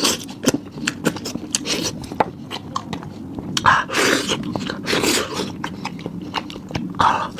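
Close-up chewing and biting on a beef trotter: irregular wet smacking with many sharp clicks.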